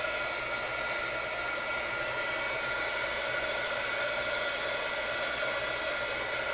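Handheld embossing heat gun running steadily, a constant rush of blown air with a fan whine over it, used to pop bubbles in freshly poured epoxy resin.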